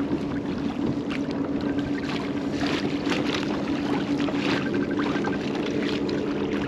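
Pedal kayak under way: water splashing and rushing along the hull, over a steady low hum.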